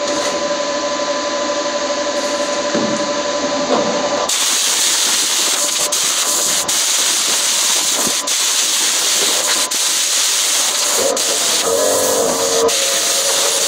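A loud, steady hiss that turns brighter and harsher about four seconds in, with a few brief breaks.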